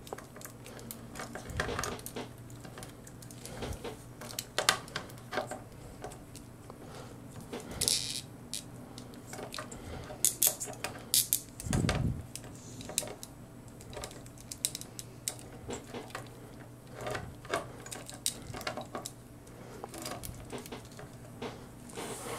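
Scattered small clicks and light knocks of hard plastic as a plastic action figure's arm and shoulder joints are moved and posed by hand, with a soft thump about 12 seconds in. A faint steady low hum runs underneath.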